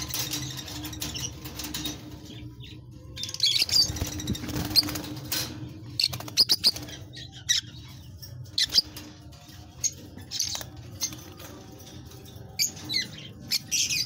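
Caged lovebirds chirping in many short, high, sharp calls, with wing flapping and clicks scattered among them. A steady low hum runs underneath.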